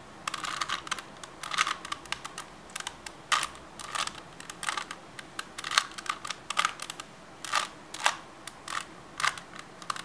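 Plastic layers of a 3x3 Rubik's cube clicking and clacking as they are turned by hand, an irregular quick run of clicks.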